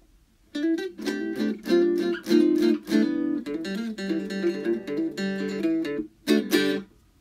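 Short piece of strummed guitar music: a run of chord strums that ends with one last strum near the end.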